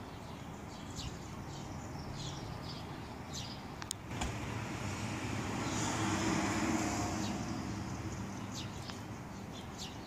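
Street traffic: a steady low rumble, with a car passing that grows louder from about four seconds in and fades near the end. A few short bird chirps sound over it.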